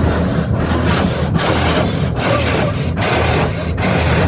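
High-pressure water jets of a touch-free automatic car wash (Autec Evolution) blasting the car, heard from inside the cabin as a loud, steady hiss of spray on the body and glass. The spray drops out briefly at a regular beat, a little more than once a second.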